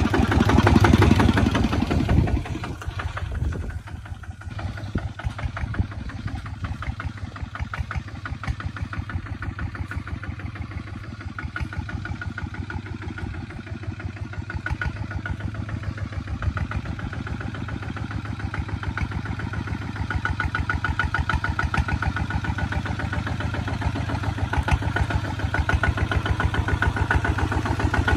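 Single-cylinder diesel engines of Kubota two-wheel walking tractors chugging with an even beat. Very close and loud for the first two seconds, then steady, growing louder toward the end as a second tractor draws near.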